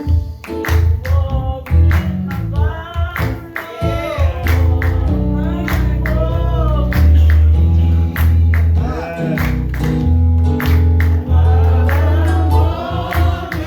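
Live gospel music: voices singing over a band with a strong bass line and a regular beat.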